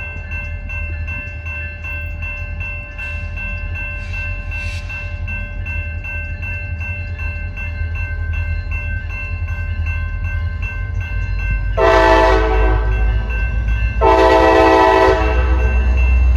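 Slow-moving CSX freight train led by an EMD SD50-3 diesel locomotive: a steady low engine rumble that grows louder near the end, with two horn blasts of about a second each, close together, in the later part.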